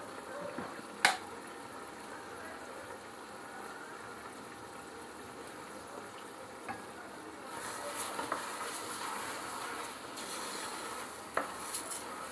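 Rice frying in olive oil with tomato and onion in a metal pot, a steady sizzle. Past the halfway point it grows louder and scratchier as the rice is stirred through. There is a sharp knock on the pot about a second in and another near the end.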